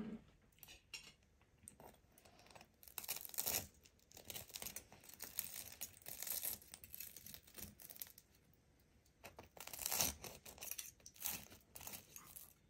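Spoon and fork cutting into and scraping the crisp saffron rice crust on a serving plate: irregular crackly scrapes and clinks, loudest about ten seconds in.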